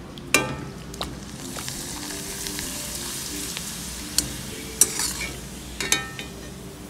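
Appalam (papad) deep-frying in hot oil in a metal kadai: a steady sizzle, with several sharp clinks as the perforated metal skimmer knocks against the pan.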